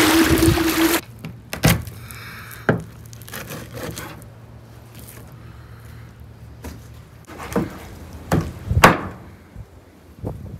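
About a second of rushing water and wind noise, cut off suddenly, then a heavy knife chopping bream on a wooden cutting board: scattered sharp knocks with quiet scraping between them, the loudest knock near the end.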